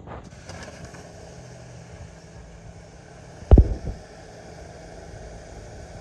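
Water under pressure spraying in fine jets from a leaking joint on a buried black plastic water supply pipe: a steady hiss that comes on suddenly just after the start. About halfway through there is one loud, low thump with a smaller knock right after.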